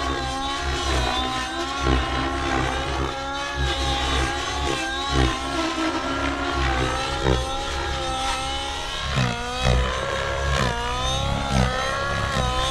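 SAB Goblin Raw Nitro RC helicopter's OS 105HZ-R nitro engine and rotor running in flight, its pitch repeatedly dipping and rising again as the helicopter manoeuvres, with several short louder peaks.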